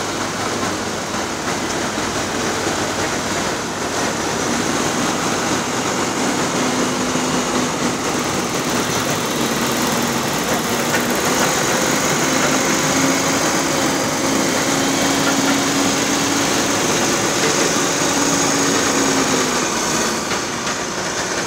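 Heavy truck engines running steadily, with a humming note that rises slightly in pitch through the middle and stops near the end.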